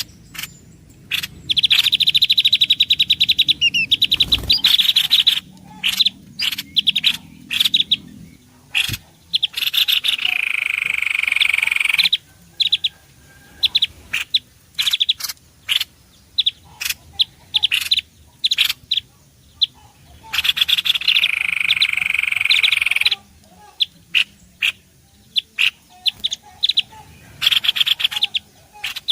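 Bird-lure recording of small songbirds: loud, rapid chattering trills alternate with strings of short, sharp chirps in a sequence that repeats. A low thump sounds once, about four seconds in.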